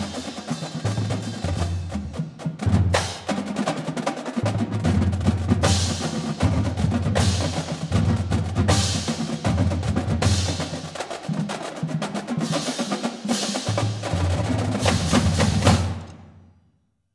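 Drumline playing: snare drums struck rapidly in unison with deep bass-drum pulses underneath and repeated bright accents. The piece ends about sixteen seconds in, and the last hit dies away into silence.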